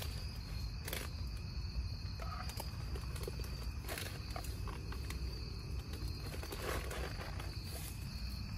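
Twigs burning in a small metal twig stove, crackling with a few sharp pops, over a steady low rumble. Insects chirr steadily in a thin high band throughout.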